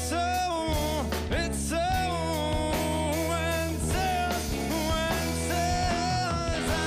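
Rock band playing live: a man singing lead vocals, with long held notes, over electric bass guitar, drum kit and guitar.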